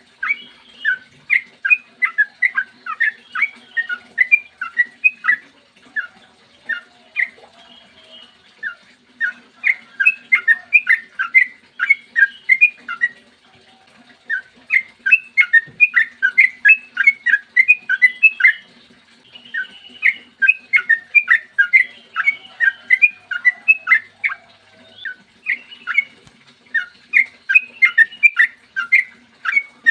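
Sooty-headed bulbul (trucukan) singing long rapid runs of sharp, whistled notes, about three to four a second, in extended phrases with short pauses between them.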